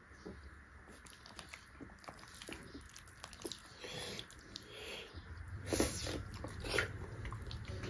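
Close-miked chewing and wet mouth smacks of people eating ripe jackfruit bulbs: soft irregular clicks throughout, with the loudest smacks in the last few seconds.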